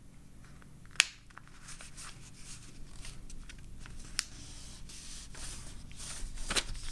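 A sheet of paper being folded by hand and the crease pressed flat: soft rustling and rubbing, with a sharp click about a second in and a smaller one about four seconds in, and the rustling grows louder near the end.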